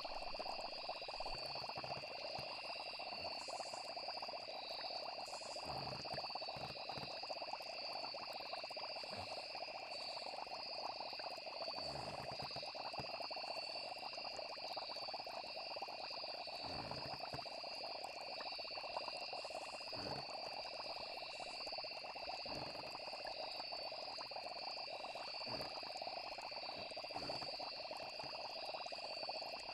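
Night chorus of frogs and crickets: a steady, unbroken high trilling with a dense frog chorus beneath it. Soft low thumps come now and then.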